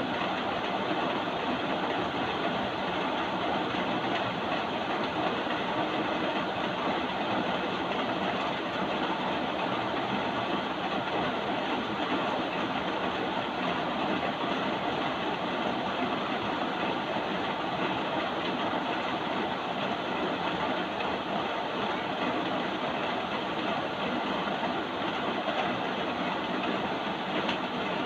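Steady rain, an even hiss.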